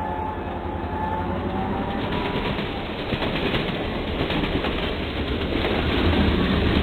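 Model freight train rolling past on its track: a steady rumble of the wheels with fast, dense clicking, getting a little louder near the end.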